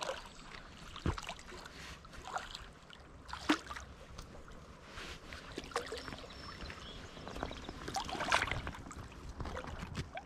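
Water splashing in short, irregular bursts as a hooked smallmouth bass thrashes at the surface while being landed; the sharpest splash comes about three and a half seconds in, with another run of splashing near eight seconds.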